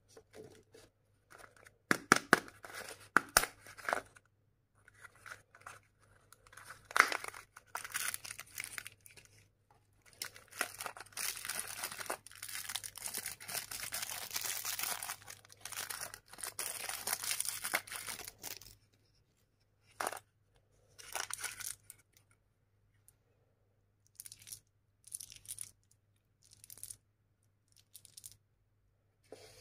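Crinkly plastic candy wrappers and a plastic surprise-egg shell handled and torn open: sharp clicks early, a loud snap, then a long stretch of steady rustling and tearing. Near the end, short scattered taps and rattles of small hard candies and plastic pieces being picked up.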